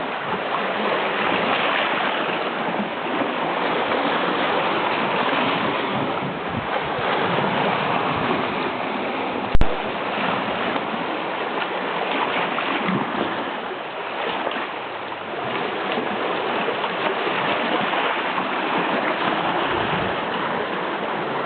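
Baltic Sea surf washing in, a steady rush that swells and eases. A single sharp click comes about nine and a half seconds in.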